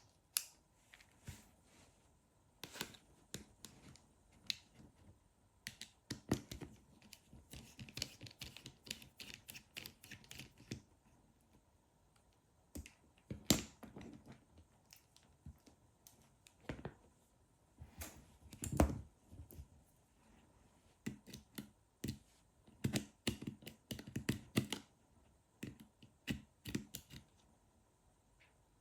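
Faint, scattered clicks and taps of a tiny Phillips precision screwdriver and small parts being handled on an opened battery doorbell while the screws and cover over its ribbon-cable connector are removed, with a stretch of light scraping.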